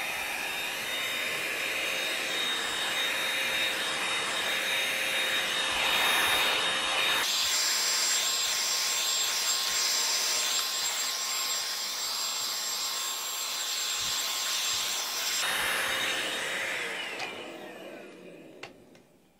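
Handheld cordless vacuum cleaner running steadily on carpet with a motor whine; its tone shifts abruptly about a third of the way in and again near the end. It is then switched off and winds down with a falling whine.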